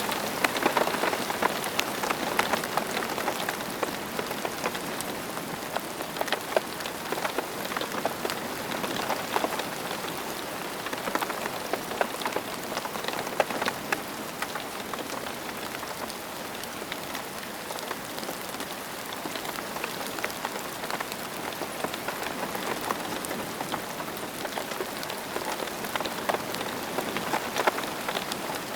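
Steady rain falling and pattering on surfaces, a dense hiss of many individual drop ticks.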